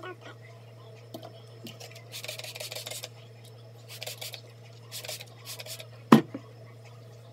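Hand-pump spray bottle spritzing hair, a series of short hissing sprays, then a single sharp knock about six seconds in, over a steady low hum.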